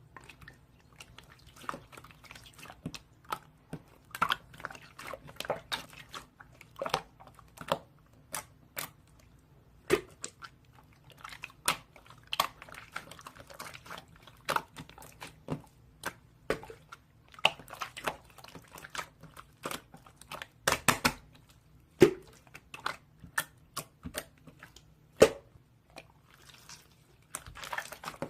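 Irregular, crisp crunching and crinkling clicks at close range, some much louder than others, over a steady low hum.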